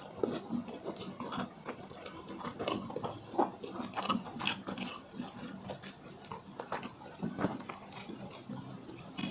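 Close-miked chewing: irregular wet mouth clicks and smacks of a person eating soft food.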